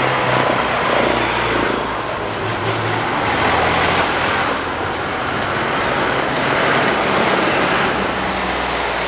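Engines of vintage vehicles running, their low, steady note shifting in pitch a few times over a general bed of outdoor vehicle noise.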